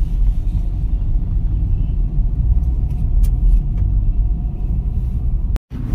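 Steady low rumble of a car heard from inside its cabin: engine and road noise.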